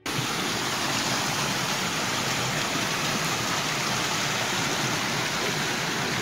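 A loud, steady, even rush of water, cut in and out abruptly.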